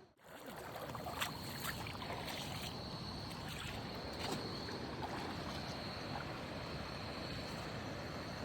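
Steady rushing river ambience by the water, with a thin high steady tone on top and a few faint clicks in the first few seconds.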